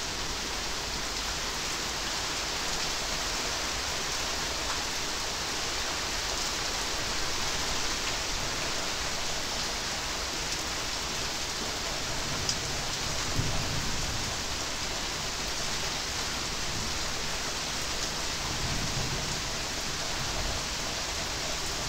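Steady heavy rain falling, an even hiss that does not let up, with a faint low rumble a little past halfway and again near the end.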